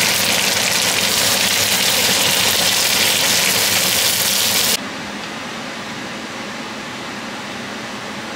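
Asparagus spears sizzling in sauce in a cast iron skillet, a loud steady hiss that cuts off abruptly a little under five seconds in, leaving a quieter steady background noise.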